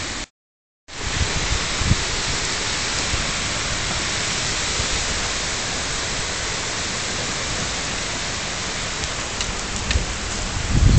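Heavy hail and rain falling hard, a steady, dense hiss of ice and water hitting the ground and surfaces. The sound cuts out completely for about half a second near the start.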